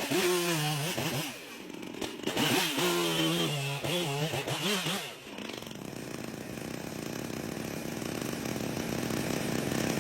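Chainsaw engine revving up and down in quick throttle swings. From about halfway it settles into a steadier, rougher running that slowly grows louder.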